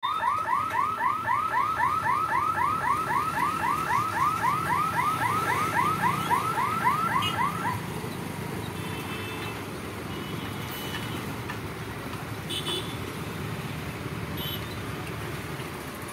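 Level-crossing boom barrier's electric warning alarm, a rapid rising chirp repeating about four to five times a second while the barrier lifts, cutting off about eight seconds in. After it, motorcycle and truck engines run as road traffic moves over the crossing, with a few short high beeps.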